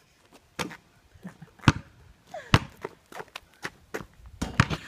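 Basketball being dribbled on an asphalt street: a bounce about once a second, with lighter taps in between.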